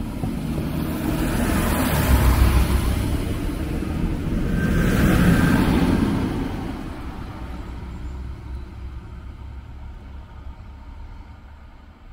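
DB Class 642 diesel railcar departing and passing close by: its diesel engines running under load with the wheels rumbling on the rails, loudest in the first six seconds as it goes past, then fading steadily as it pulls away.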